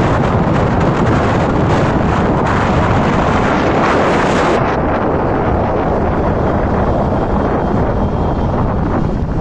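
Steady wind buffeting on the microphone of a camera travelling in a moving vehicle, over the vehicle's road and engine noise.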